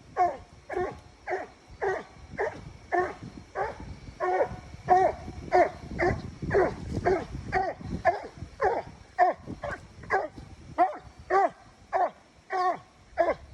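Coonhound barking treed, an even rhythmic chop of about two barks a second.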